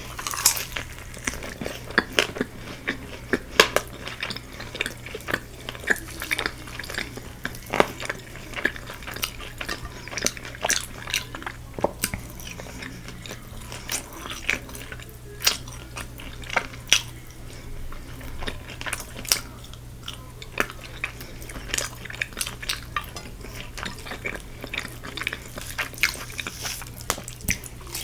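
Close-up eating of Korean fried chicken: biting and chewing, with many sharp, crisp clicks spread unevenly throughout and some light clatter of cutlery or dishes. A faint steady low hum runs underneath.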